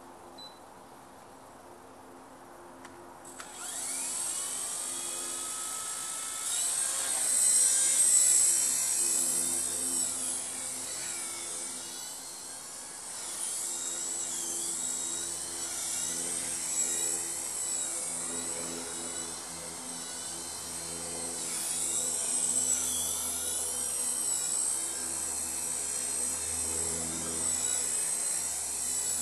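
Blade mCP X micro RC helicopter's electric motors and rotors whining at a high pitch, starting about three and a half seconds in with a rise in pitch as it spools up, then wavering in pitch and loudness as it flies.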